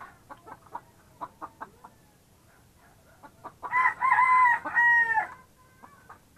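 Chickens clucking quietly in short notes, then about four seconds in a rooster crows once, a loud call lasting about a second and a half that drops off at the end.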